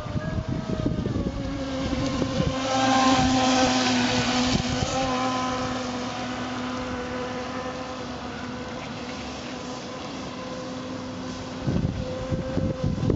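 Piranha 600 RC speedboat's brushless electric motor, on an 11.1 V LiPo, whining steadily at speed, louder a few seconds in and then slowly fading as the boat runs off across the water. Low wind rumble on the microphone, strongest near the end.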